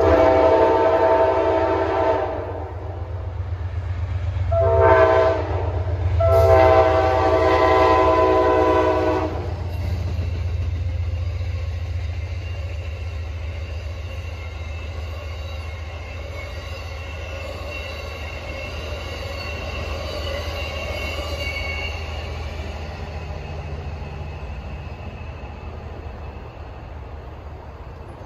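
Diesel locomotive air horn sounding three blasts (long, short, long), with the low rumble of a passing train under it. After the horn, the train's rumble carries on with faint high wheel squeal and slowly fades.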